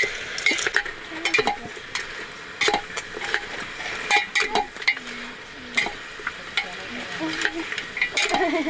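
A metal ladle stirring and scraping in a pot of frying curry: irregular sharp clinks over a steady sizzle.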